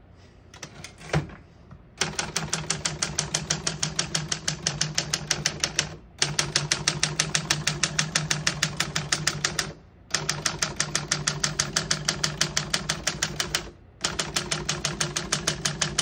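A 1961 Smith-Corona Secretarial manual typewriter being typed on fast: rapid, even clacks of the typebars striking the platen, in runs broken by short pauses about every four seconds. A single click comes about a second in, before the typing starts.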